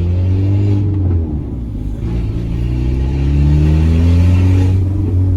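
Peugeot 206's 1.4 four-cylinder petrol engine on a straight-through exhaust with no catalytic converter, accelerating twice: the pitch climbs, drops back after about a second, then climbs longer and eases off near the end. The engine is still cold, which makes the exhaust notes very loud.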